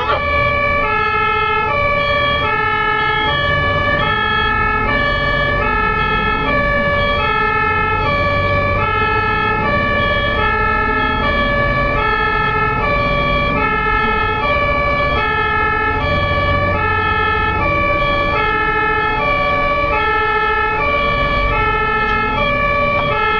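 German ambulance two-tone siren sounding without a break, stepping back and forth between a low and a high note about every two-thirds of a second, with a vehicle engine and road rumble underneath.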